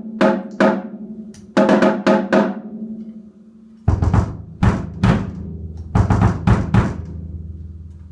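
Yamaha Stage Custom toms, tuned wide open, struck in groups of hits, each leaving a long ringing tone. First a higher tom is played, then about four seconds in a lower, deeper tom, likely the floor tom, takes over and rings on.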